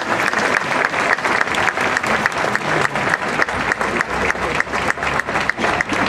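A large audience applauding, many hands clapping densely together.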